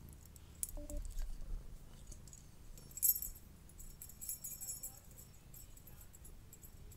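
Light metallic jingling in short, irregular clusters, loudest about three seconds in, as a cat is played with using a small toy.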